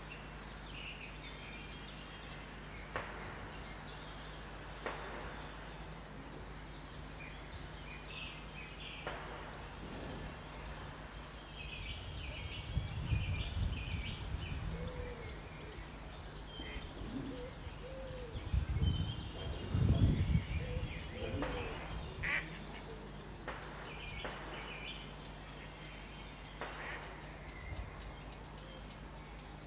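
Faint, sharp cracks of distant small-calibre rifle fire from a shooting range, single shots a few seconds apart, over steady high insect chirping. Two louder low rumbles come around the middle.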